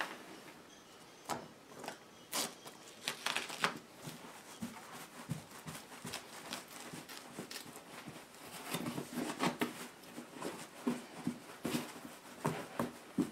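Self-adhesive felt sound-deadening pad being handled and pressed down by hand onto the rubber back of a car carpet: scattered short rustles, crinkles and light pats, busier in the second half.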